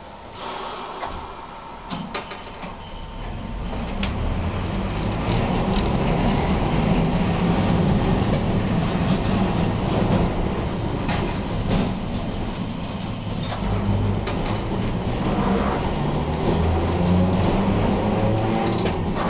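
Tosaden streetcar with nose-suspended traction motors pulling away, heard from the driver's cab. The motor growl and wheel rumble build over the first few seconds, then run on steadily, with occasional sharp clicks.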